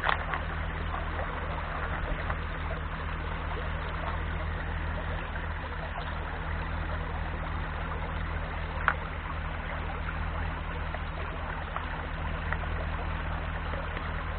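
Shallow rocky river water running steadily over stones, with one sharp click about nine seconds in.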